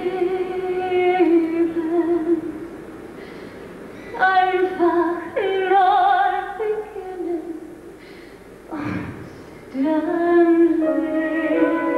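A woman singing solo into a microphone, holding long notes with vibrato, in phrases broken by two short pauses.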